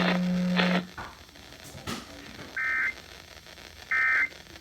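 Emergency Alert System SAME data tones: two short, shrill warbling bursts about 1.4 s apart, the repeated End-of-Message code that closes the alert. They follow the tail of the voice reading the warning, which stops about a second in.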